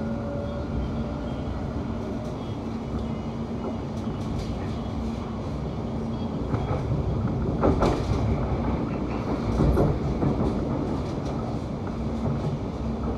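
Class 710 electric multiple unit running along the line, heard from inside the carriage: a steady rumble with a constant hum. There is a faint rising whine in the first second or so, and two louder clattering knocks about eight and ten seconds in.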